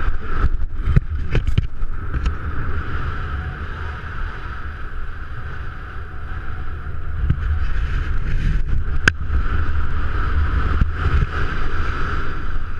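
Wind rushing over a helmet-mounted camera's microphone during a static-line BASE jump and canopy flight: a steady loud rumble with a whistling band above it. A few sharp snaps in the first two seconds come as the parachute opens, and there is one more sharp click about nine seconds in.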